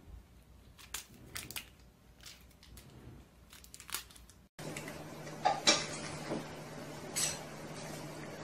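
Soft scattered clicks and rustles as a cat bats at a feather wand toy on a wooden floor. About halfway through this gives way to a cat eating from a bowl: a few sharp crunches over a steady low hum.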